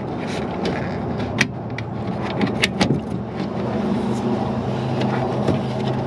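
Scattered sharp clicks and ticks of a door-latch cable end being worked loose from its clip on a Ford E150 van's rear door latch, over a steady low hum.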